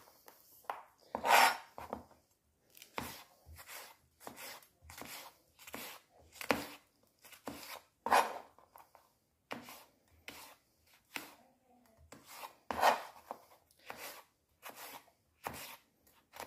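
Chef's knife cutting red pepper on a cutting board: a run of short knife-on-board knocks at roughly two cuts a second, with brief pauses between runs and a few harder strokes.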